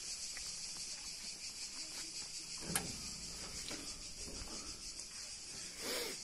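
Crickets chirring in a steady, high-pitched drone, with a few faint knocks.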